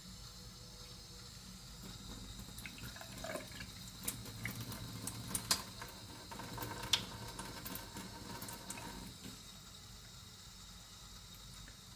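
Kitchen tap running into a plastic bowl of soaked wheat grains over a stainless steel sink, water splashing and trickling as the soaking water is changed. The splashing gets busier in the middle, with a few sharp drips.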